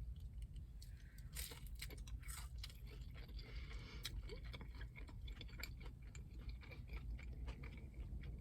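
Close-up chewing of a chicken nugget with many small irregular mouth clicks, quiet under a low steady hum.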